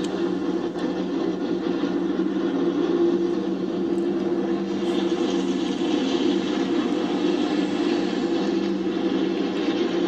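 The field of NASCAR Winston Cup stock cars' V8 engines running together just after being fired up, a steady low drone, played back through a television.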